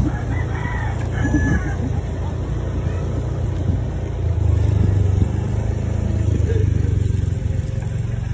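Steady low rumble of a motor vehicle riding along, its engine and the wind on the microphone, swelling a little about four seconds in. A rooster crows briefly about a second in.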